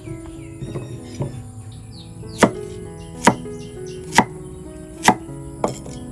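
A knife chopping food on a wooden cutting board. There are a few light strokes, then four hard chops about a second apart and a lighter one near the end.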